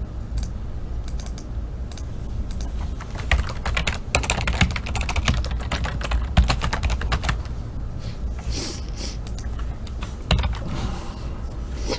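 Typing on a computer keyboard: irregular runs of quick key clicks, densest in the middle and thinning out towards the end.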